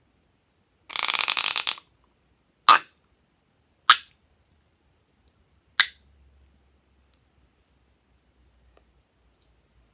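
Liquid being squeezed out of a balloon through its narrow nozzle: a rapid sputtering rasp of air and liquid for most of a second, then three short sharp spurts as the last air squirts out.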